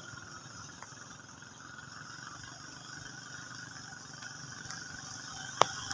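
Faint, steady hiss of rain and tyres on a wet street, with one sharp click near the end.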